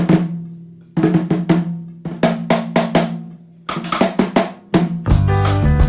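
Intro music: a drum-kit opening of snare and drum hits in short groups, with bass and other instruments joining near the end for the full backing track.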